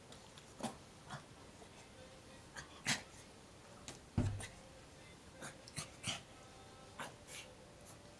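A puppy playing on a rug, giving short, sharp puffs of breath and sniffs at irregular intervals, with a soft low thump about four seconds in.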